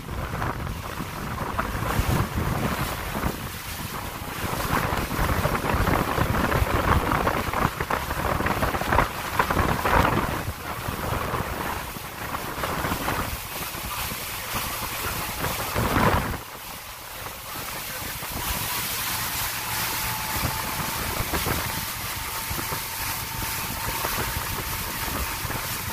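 Motorboat running at speed: wind buffeting the microphone over the rush of water and the engine's drone, in gusts that swell loudest about two thirds through. A steady, thin whine joins in near the end.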